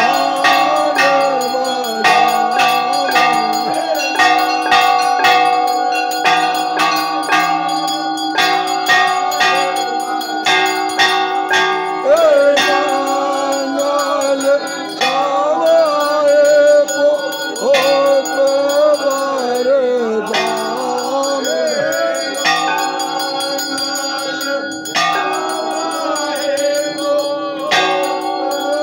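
Brass temple bells rung rapidly and without pause for an aarti, with voices singing a devotional chant that is clearest from about halfway through.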